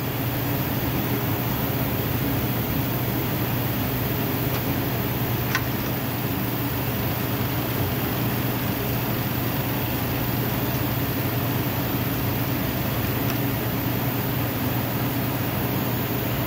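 Grundig TK-46 reel-to-reel tape recorder running: a steady mechanical hum with a low drone, unchanging throughout, and one faint click about five and a half seconds in.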